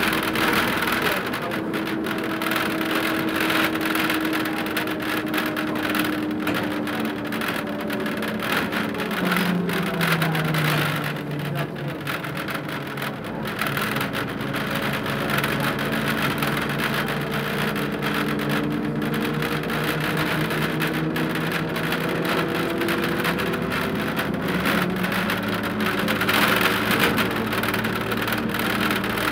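Ikarus 280 bus's diesel engine running under way, heard from inside the bus, with road noise. Its pitch rises and falls as the bus speeds up, with a marked drop about ten seconds in.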